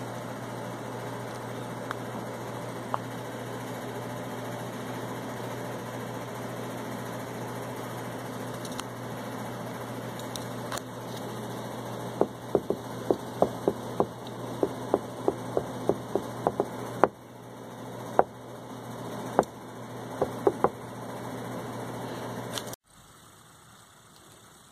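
A .22 LR pocket pistol, a Jennings J-22, firing. Sharp cracks begin about halfway through, closely spaced at first and then a few single shots, over a steady low hum.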